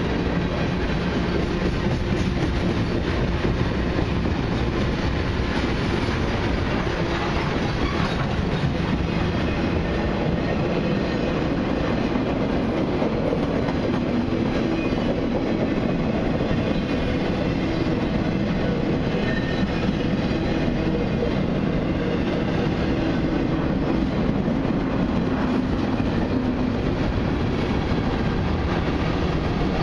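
Freight cars of a long mixed freight train rolling steadily past: a continuous rumble of steel wheels on the rails.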